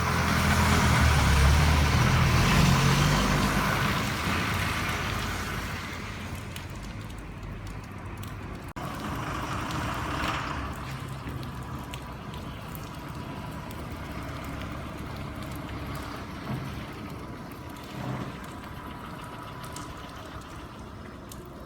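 Diesel bus engine pulling away, loudest in the first few seconds and then fading as the bus moves off, over a steady hiss of rain.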